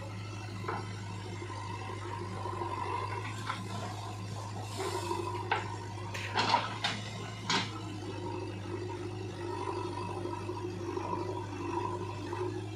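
Diesel engines of a JCB 3DX backhoe loader and a Sonalika tractor running steadily. About five seconds in, a bucketful of soil and stones tips into the tractor's steel trolley with a rush and several sharp knocks, lasting a couple of seconds.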